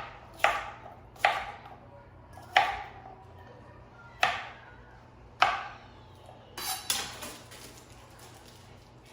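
Knife chopping cucumber on a cutting board: five separate, unhurried chops about a second apart, then a short clatter near the end.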